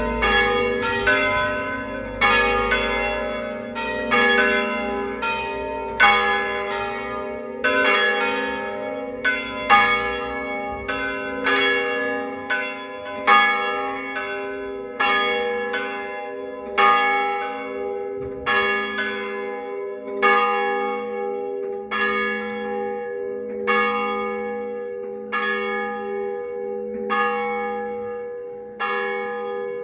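Church bells cast by Cavadini of Verona, swung full circle in the Veronese system, struck by their clappers with long overlapping ringing tails. The strikes come close together at first, then thin out in the second half to a regular single stroke about every second and three-quarters.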